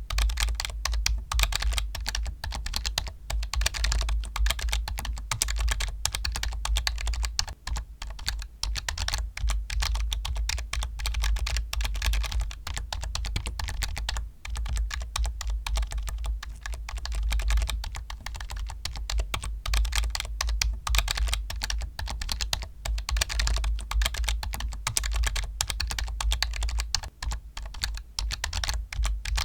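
Fast, continuous typing on a computer keyboard, a dense run of key clicks with a few brief pauses.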